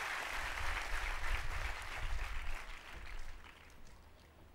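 Large seated crowd applauding, the clapping fading out about three seconds in.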